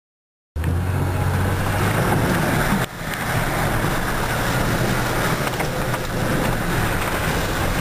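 Car driving on a dirt forest track, heard from inside the cabin: steady engine hum and tyre-on-gravel rumble. The sound cuts in suddenly about half a second in and dips briefly near the three-second mark.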